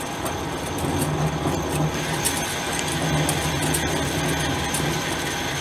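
Hardinge HLV toolroom lathe running steadily under power with its lead screw engaged for threading: an even hum of the motor and gear train with faint ticking.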